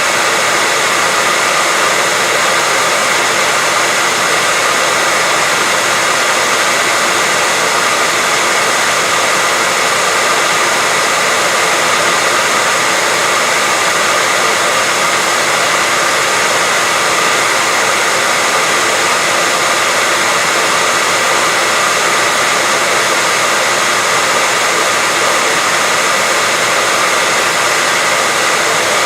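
Continuous white noise: a steady, unchanging hiss, loud and even, with faint steady tones running through it.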